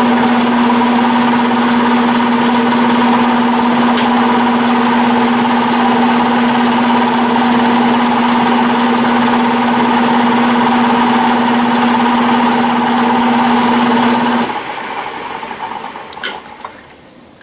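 Atlas bench lathe running with a steady hum while a rod end forming cutter in the tailstock is fed onto a spinning 3/16-inch brass rod to turn a radius on its end. The lathe is switched off about fourteen seconds in and winds down, with a couple of clicks near the end.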